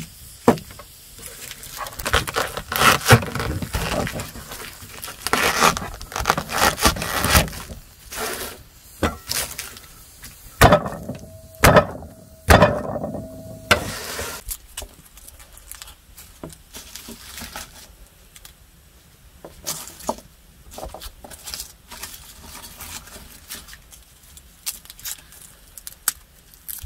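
Head of garlic being broken apart by hand on a wooden board: papery skins crackling and rubbing, cloves snapping loose with sharp clicks and crunches, and a brief squeak about halfway through. Later the clicks turn softer and sparser as the cloves are peeled.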